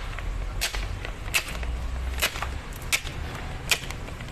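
Five sharp knocks, evenly spaced about every three-quarters of a second, over a low steady hum.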